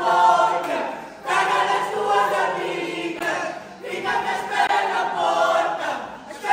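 A group of voices singing together without instruments, in phrases of a couple of seconds with short breaths between them.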